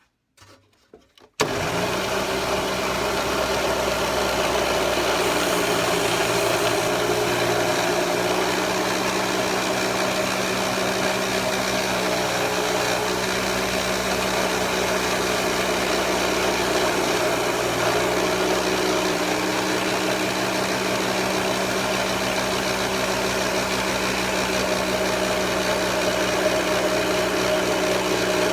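A lapidary flat lap's motor switches on about a second and a half in and runs steadily, with an even hum, while burrs are smoothed off a 14k gold ring band on the spinning lap.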